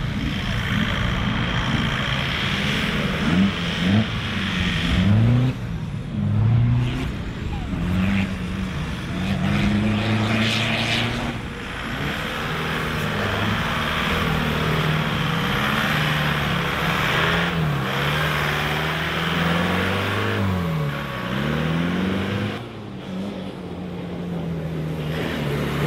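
Modified off-road 4x4's engine revving hard under load as it works over dirt mounds, its pitch repeatedly dropping and climbing again, over a hiss of tyres and spraying dirt.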